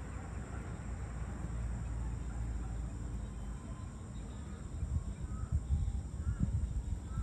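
Outdoor ambience: a low rumble that swells and falls, like wind on the microphone, with a few faint short chirps from about five seconds in.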